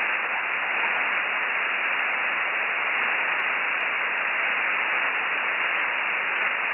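Steady hiss of a ham radio receiver with no signal on the channel: band noise passed through the receiver's narrow voice filter, with nothing above about 3 kHz.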